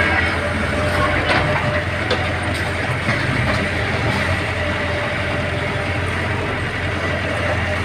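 Heavy road-construction machinery engine running steadily with a low hum, a few faint knocks in the first couple of seconds.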